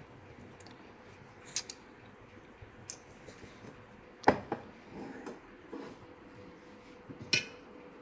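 Hands handling laptop parts and tools on a repair bench: a few sharp clicks and knocks of hard parts being moved, set down and picked up. The loudest comes about four seconds in and another near the end, over a faint steady hum.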